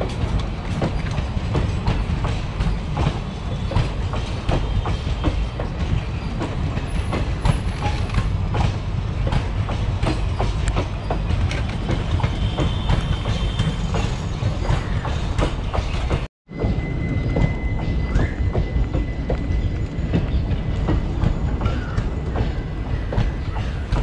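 Express passenger train coaches rolling past, wheels clattering over rail joints in a steady, loud rumble of rapid clicks. The sound cuts out for an instant about two-thirds of the way through, then the rolling clatter resumes.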